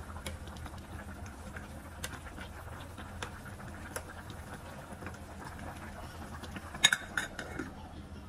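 Spoon stirring soup in a stainless steel pot, with light taps of metal on metal. About seven seconds in, the pot's metal lid is set down with a few sharp clanks. A steady low hum runs underneath.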